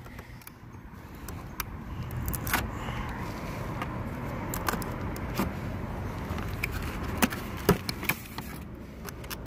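A Milwaukee Hardline D2-steel knife cutting through packing tape and cardboard on a boxed tool kit: a rough scraping and rustling, broken by scattered small clicks and knocks as the box is handled.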